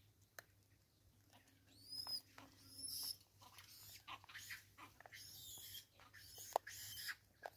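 Faint wild bird calls: two short arching whistles about two and three seconds in, then a run of scratchy high chatter, with a few sharp clicks among them.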